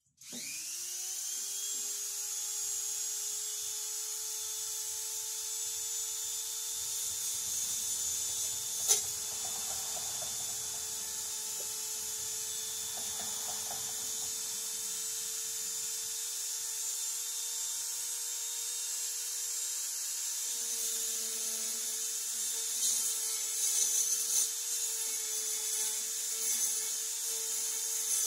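A high-speed power tool spins up and runs steadily, with a single sharp click about nine seconds in. In the last several seconds it sounds rougher and more uneven, with crackling grinding or cutting noise.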